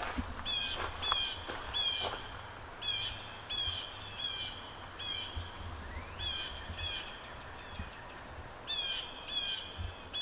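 Birds calling loudly, short high chirping notes repeated one after another, about two a second, with brief pauses.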